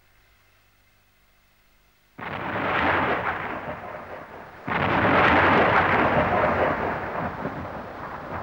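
Two claps of thunder: a sudden crack about two seconds in that fades, then a louder one about halfway through that rumbles on and slowly dies away.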